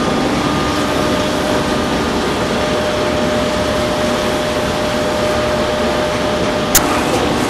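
A motor running steadily with a constant hum under loud noise, and a single sharp click near the end.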